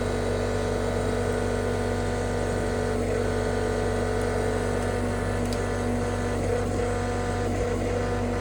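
John Deere 325G compact track loader's diesel engine running steadily, with a few slight wavers in pitch as the machine works.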